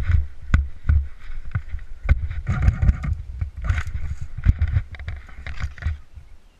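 A string of sharp thumps or clicks, about two a second, over a low rumble of wind and handling noise on the microphone, with bursts of rustling.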